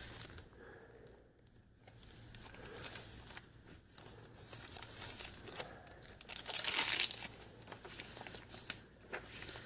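Stiff paper and cardstock pages of a handmade junk journal rustling and crinkling as they are turned and handled, in irregular bursts with a louder flurry about seven seconds in.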